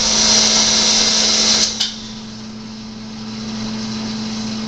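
Electric pump running with a steady hum, under a loud hissing rush that cuts off suddenly just under two seconds in.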